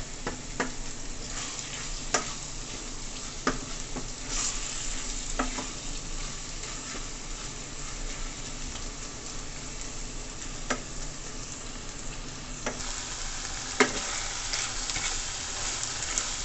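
Saltfish and vegetables sizzling in a stainless steel sauté pan while a wooden spoon stirs them, the spoon knocking against the pan now and then. The sharpest knock comes near the end.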